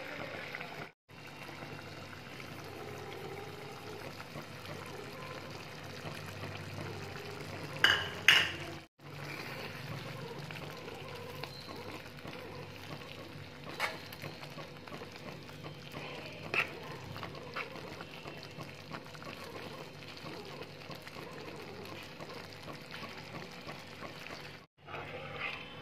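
Thick prawn curry gravy bubbling and sizzling in a pan as it simmers down, with a few sharp clicks and knocks of a spoon against the pan, the loudest about eight seconds in.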